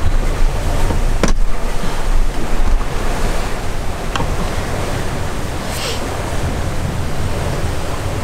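Water rushing and splashing along the hull of a sailing yacht moving fast under sail, mixed with wind buffeting the microphone as a low rumble. A few brief clicks come through, the sharpest about a second in.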